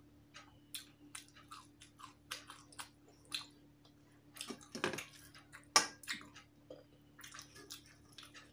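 Close-up eating: chewing with wet mouth clicks, and fingers mixing rice and curry on a steel plate, heard as irregular short wet clicks and squishes, with a couple of louder ones past the middle.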